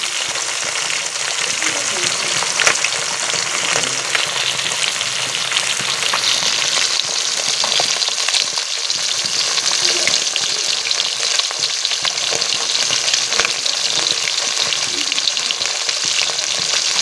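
Pieces of fish frying in hot oil in a pan: a steady sizzle with constant small crackles and pops.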